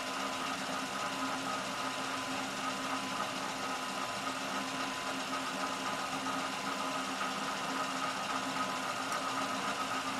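Storm Vulcan 15A crankshaft grinder's motors running steadily: a constant mechanical hum with a steady high whine over it.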